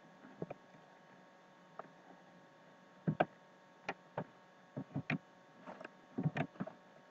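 Irregular clicks of computer keyboard keys, single presses and quick pairs, most of them in the second half, over a faint steady hum.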